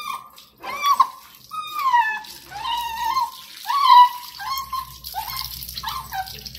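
Desi dog puppy crying with a run of about eight short whining yelps, each sliding down in pitch, while tap water runs over it. These are cries of fear at being bathed, which the family hears as the puppy saying 'mummy'.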